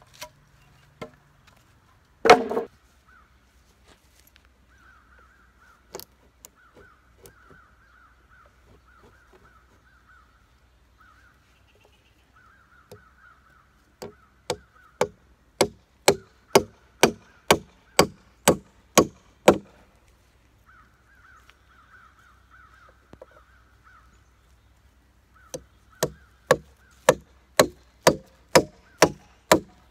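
Hammer driving nails into a wooden frame of reclaimed lumber: two runs of steady strokes, about two a second. One heavier thump of wood comes near the start.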